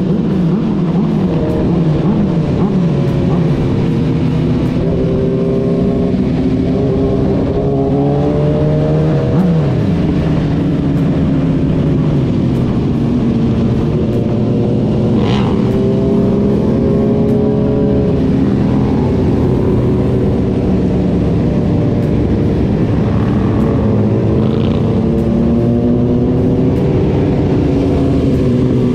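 Several sport motorcycle engines running together in a group ride, their pitches rising and falling as riders roll on and off the throttle. There is a brief high-pitched sound about halfway through.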